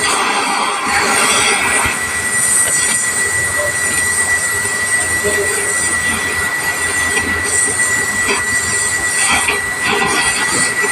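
Oxy-fuel gas welding torch burning with a steady hiss and a thin, constant high whistle, as aluminium filler rod is melted into a leak on an aluminium radiator tank.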